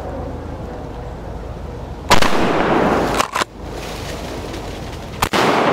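Two 12-gauge shotgun shots about three seconds apart, each followed by an echo that trails off.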